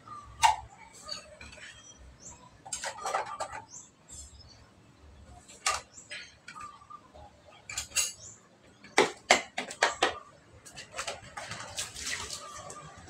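Dishes being washed and stacked by hand: plates, bowls and cups clattering and knocking against each other at irregular moments, with a quick run of sharp knocks about nine seconds in.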